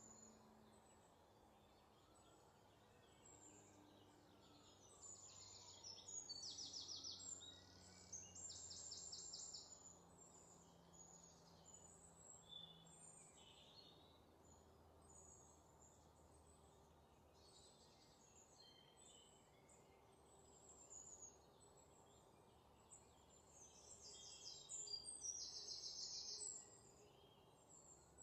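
Near silence with faint bird chirps, broken by short bursts of rapid high trills a few seconds in and again near the end.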